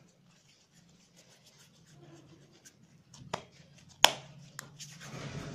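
Hands rolling and pressing a ball of soft dough between the palms, with faint rubbing and ticking sounds, over a low steady hum. A sharp click comes about four seconds in, the loudest sound, with smaller clicks shortly before and after it, and the rubbing grows louder near the end.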